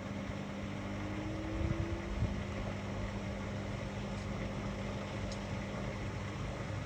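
Whirlpool FSCR 10425 washing machine running: a steady motor hum, with a whine that rises slowly in pitch over the first couple of seconds as the drum motor speeds up, and a few soft knocks about two seconds in.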